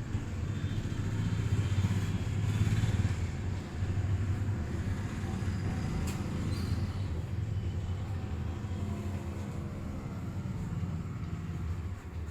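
Steady low rumble of road traffic, with a single sharp click about six seconds in.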